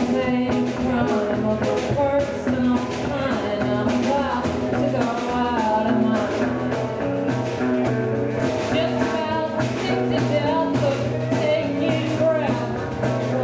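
Live band music: a woman singing the lead melody while strumming an acoustic guitar, with more guitars playing along.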